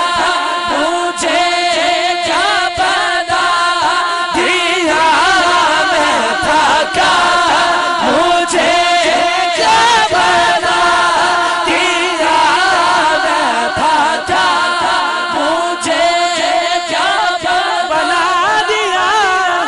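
Men's voices singing a naat through a PA system: an ornamented, wavering melody over a backing chorus of men holding a steady drone.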